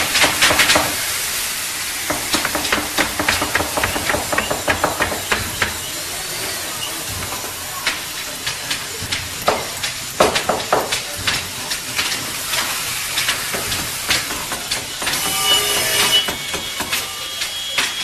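Plywood skate-ramp construction: a run of hammer blows on wood, sometimes several a second, over a steady hiss. A power saw whines briefly near the end.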